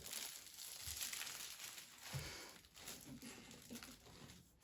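Packaging rustling and crinkling in short, irregular bursts.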